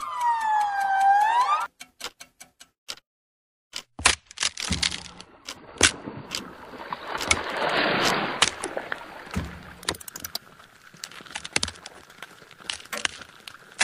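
Musique concrète soundtrack of processed recorded sounds: a pitched tone that swoops down and back up, then scattered clicks, a second of silence, then dense clicking with a hissing swell that rises and fades. A faint steady high tone sits under the clicks near the end.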